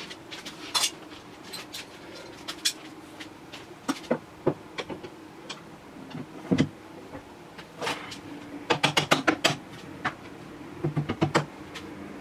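Metal bar clamps clicking and clacking against each other and the wooden workpiece as they are set and adjusted: scattered sharp clicks, one louder knock about halfway, and two quick runs of rapid clicks near the end.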